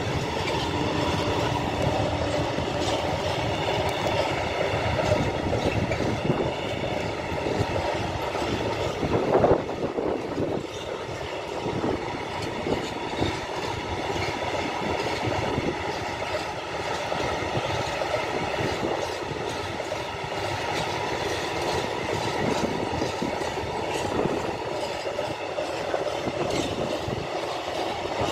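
Freight train of stake wagons rolling over a rail overpass: a steady rumble of wheels with a continuous fast clatter. One louder knock comes about nine seconds in.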